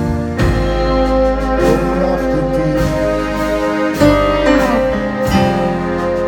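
A live band playing, with held keyboard chords, drums and electric guitar, and a soprano saxophone carrying a wavering lead line.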